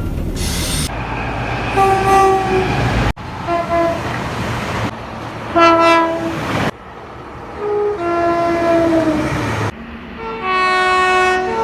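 Train horns in a run of short clips: about five separate blasts, some a higher note followed by a longer lower one, each clip cut off abruptly before the next. A heavy low rumble of a train runs under the first few seconds.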